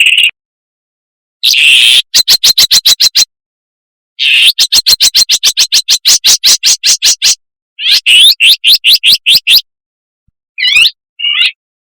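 Shrike calling: a harsh grating note, then long runs of rapid, evenly spaced chattering notes, about eight a second, followed by a few quick sweeping chirps near the end.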